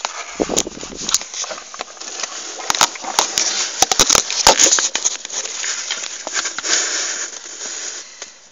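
Handling noise from a hand-held camera being pushed in among engine-bay hoses and wiring: scraping and rustling against the microphone, with many irregular sharp clicks.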